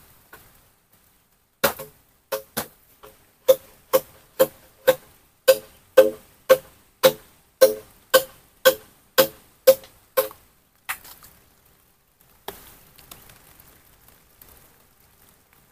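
Bamboo struck in a steady run of about twenty sharp blows, roughly two a second, each with a hollow ringing knock. The blows stop about ten seconds in; one more follows, then only faint rustling.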